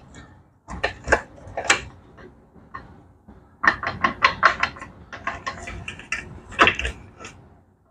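1971 Moto Guzzi Ambassador gearbox being shifted through its gears by hand on the bench, with its shaft turned: several sharp metal clunks, a quick run of rapid clicks in the middle, and another clunk near the end.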